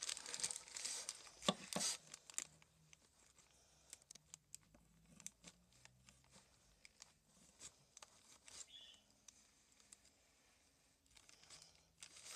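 Paper being cut with scissors and handled, with crinkling and snipping in the first two seconds, then only faint small clicks and rustles.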